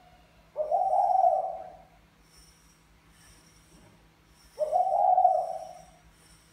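Caged spotted dove cooing: two drawn-out coo phrases, each about a second and a half long, about four seconds apart.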